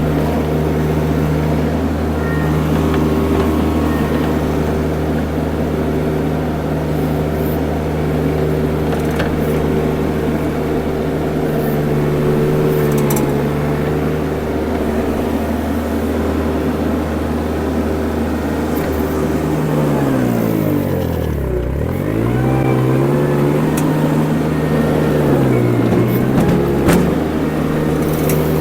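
A mini skid steer's engine running steadily as the machine works loose dirt; about 20 seconds in its pitch drops sharply and climbs back, and it dips once more briefly near the end.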